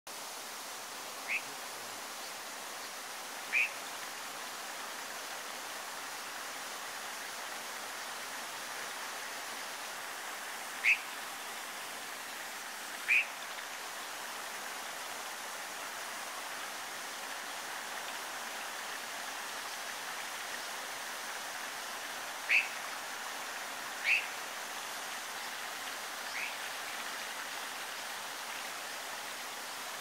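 Steady rush of a stream, with seven short, high bird calls standing out above it, mostly in pairs about two seconds apart.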